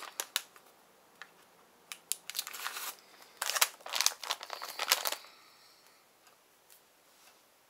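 Crinkling and rustling of a white wipe being handled and rubbed over the lips to take off liquid lipstick, in several short bursts over the first five seconds.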